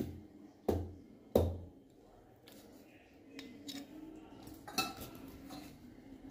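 Dishes and cutlery clattering: sharp knocks and clinks, three in the first second and a half with the loudest about a second and a half in, another near five seconds, and lighter clinks between.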